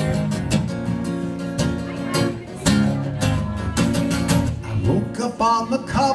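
Acoustic guitar strummed in a steady rhythm, an instrumental break between verses of a live solo song.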